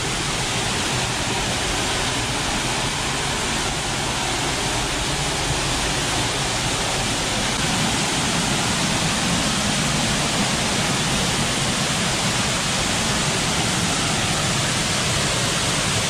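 Waterfall pouring over a rock ledge into a pool, a steady, even rush of falling water. The falls are running with great force, swollen by rain.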